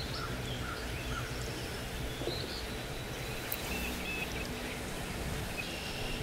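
Outdoor ambience: scattered short bird chirps over a steady low background hum.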